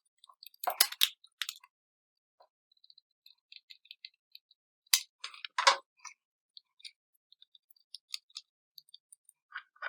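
3D-printed plastic gearbox parts clicking and knocking together as the output cover is fitted onto the main shell: a scatter of light clicks, with louder knocks about a second in and again around five to six seconds in.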